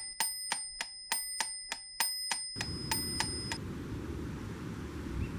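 Rapid metallic clicking, about three clicks a second, over a steady bell-like ringing. About two and a half seconds in, the ringing fades and a low, steady rumbling noise takes over, with a few faint clicks trailing after it.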